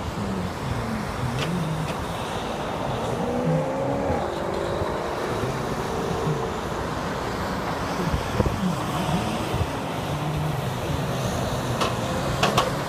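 Highway traffic noise, with cars and trucks passing close by and engines rising and falling in pitch. A few sharp clicks come near the end.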